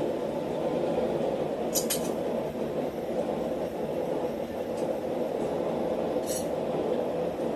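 A blacksmith's forge fire running with a steady rush. Light metal clinks come twice in quick succession about two seconds in and once more near the end.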